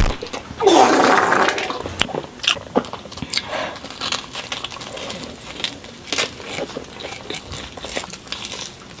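Close-miked biting and chewing of pizza, with wet mouth clicks and smacks. About half a second in there is a louder noisy sound lasting about a second.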